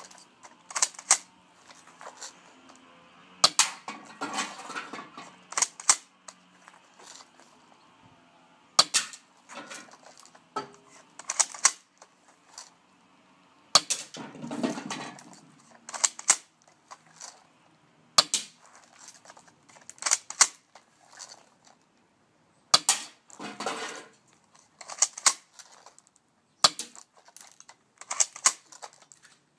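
Spring-powered airsoft M3000 pump-action shotgun being racked and fired over and over: sharp plastic clicks and snaps, often in close pairs, every second or few, with a few longer scraping sounds between shots.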